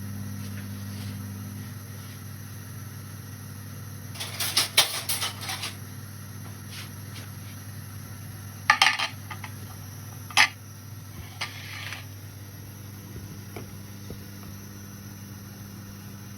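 Kitchen dishes and utensils clattering: a run of clinks and knocks about four seconds in, another cluster near the middle and a sharp single clink after it. A steady low hum runs underneath.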